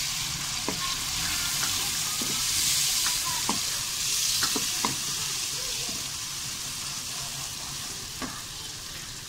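Sliced onions and ginger-garlic paste sizzling in hot ghee in an aluminium wok, stirred with a wooden spoon that knocks against the pan several times. The sizzle eases slightly toward the end.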